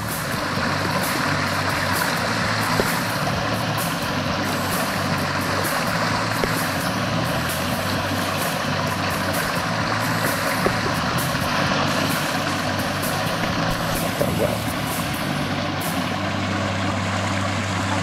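Steady rush of creek water running over rocks, with background music of sustained low notes and a light ticking beat laid over it.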